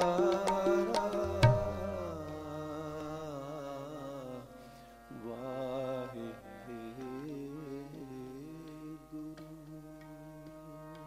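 End of a Sikh kirtan on harmonium and tabla. The tabla plays its last quick strokes and ends on a deep bass stroke about a second and a half in. The harmonium carries on alone with a few short phrases, then holds a chord as it fades away.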